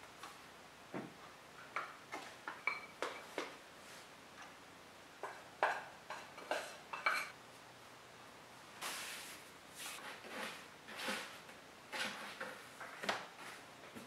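A plastic bowl scraper clicking and scraping against a ceramic mixing bowl as sticky bread dough is worked out of it, a run of sharp clicks in the first half. Then come softer scraping swishes as the dough is handled on a floured wooden board.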